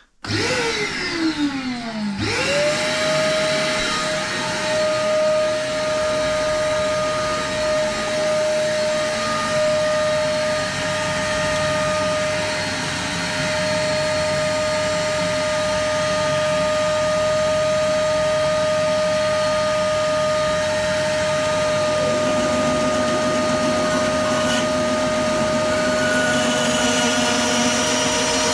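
Bandsaw motor running steadily with a high, even whine, settling in about two seconds after starting.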